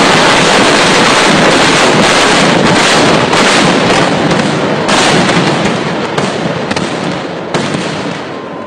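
Massed firecrackers of a vedikettu fireworks barrage: a dense, continuous din of overlapping explosions. After about five seconds it thins into more separate bangs and grows quieter.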